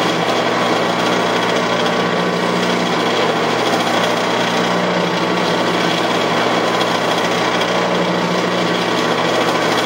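Metal lathe running steadily, spinning a muzzleloader breech plug in its four-jaw chuck while a tool held in the tailstock chuck cuts into it: an even motor hum under a continuous rasping cutting noise.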